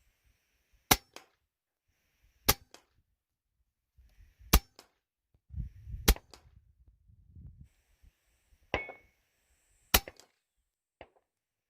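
Hatsan Nova .177 air rifle firing a string of about five slug shots, one every second or two. Each sharp crack is followed a fraction of a second later by a fainter click. A few quieter handling clicks and knocks come between the shots.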